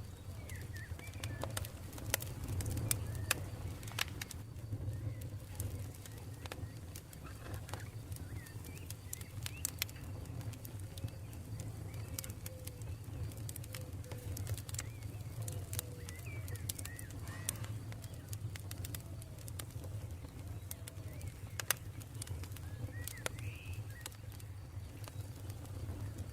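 Campfire burning, with irregular sharp crackles and pops over a steady low rumble. Birds call faintly in the background.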